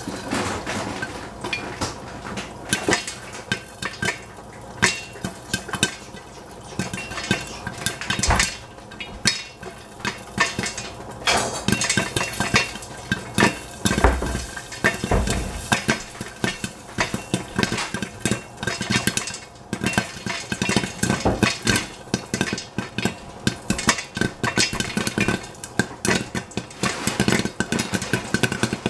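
Popcorn kernels popping inside a covered stainless steel pot, a dense run of irregular sharp pops and ticks against the metal lid and sides. A couple of dull thumps sound about halfway through.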